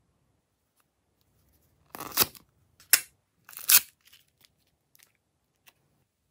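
A heart-shaped plastic slime tub being opened: its sealed film is peeled off and the slime popped out, giving three short crinkly tearing sounds about a second apart.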